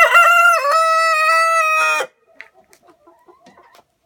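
Rooster crowing once: a loud, drawn-out call of about two seconds that cuts off sharply, followed by faint scattered clucking.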